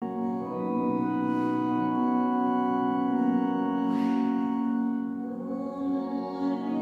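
Organ playing slow, sustained chords, the instrumental introduction to a sung responsorial psalm.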